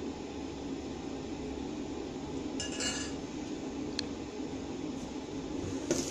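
A steel ladle clinks against a stainless steel bowl as it is set down, a short ringing clatter about halfway through, followed by a single small click a second later, over a steady background hum. Near the end there is a brief scrape.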